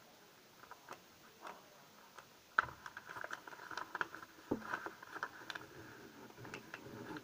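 Sheet of paper rustling and crinkling as it is folded and creased by hand. There are a few light crackles at first, then a sharp crackle about two and a half seconds in, followed by a busy run of small crinkles.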